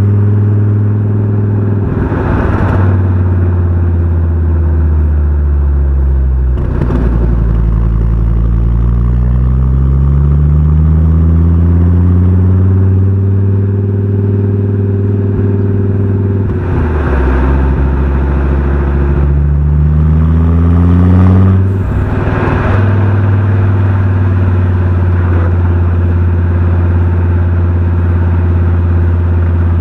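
Fiat Coupé 20V Turbo's five-cylinder engine and exhaust under way, its note rising and falling with the revs several times, with four short rushes of noise in between. It settles to a steady note for the last several seconds.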